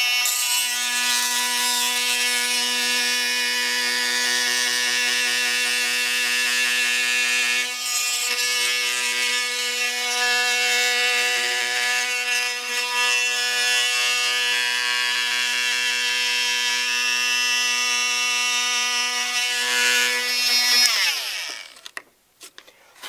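Corded Bosch oscillating multi-tool running with a carbide blade, cutting through the epoxy bond of a carbon fiber panel seam. It makes a steady whine that dips briefly about eight seconds in, then is switched off about two seconds before the end and winds down, falling in pitch.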